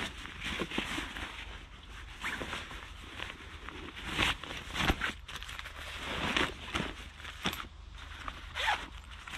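A run of irregular rasping scrapes of a second or less, the loudest about four, five, six and a half and eight and a half seconds in.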